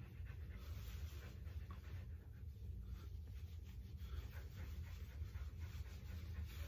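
Faint, irregular scratchy strokes of a brush being drawn through a Keeshond's thick, long coat.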